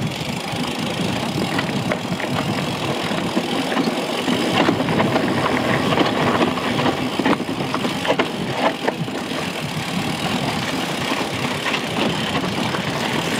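Mountain bike ridden over a rough dirt trail: a steady rumble of tyres on the ground with frequent rattling clicks from the bike.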